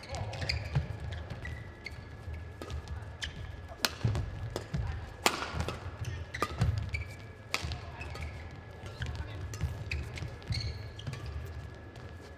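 Badminton rally on an indoor court: sharp racket strikes on the shuttlecock every second or two, with short shoe squeaks and thudding footfalls between them.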